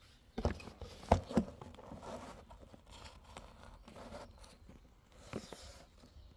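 Tools and metal parts being handled: a few sharp knocks and clinks, the loudest about a second in, with faint scraping in between.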